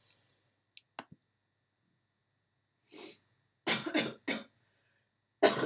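A man coughing: a short burst about three seconds in, then three quick coughs, and a louder one near the end.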